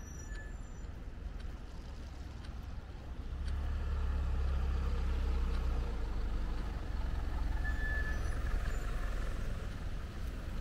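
City road traffic: a steady low rumble of passing vehicles, which grows louder about three seconds in as a bigger vehicle goes by close.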